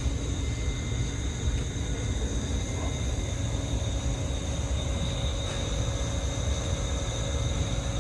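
Stabled electric train's auxiliary equipment running steadily: a constant electrical hum with several high whining tones over a low rumble.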